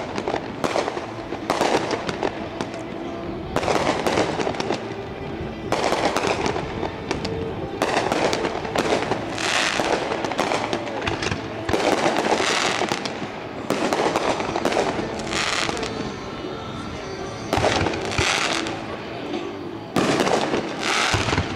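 Aerial fireworks shells bursting one after another, a bang every second or two, some followed by crackling that runs on for a second or more.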